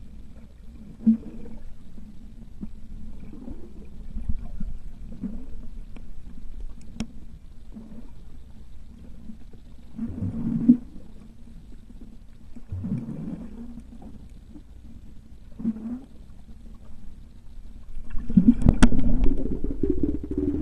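Muffled underwater sound picked up by a submerged camera: a low steady rumble with gurgling surges every two to three seconds, a few sharp clicks, and a louder, longer surge near the end.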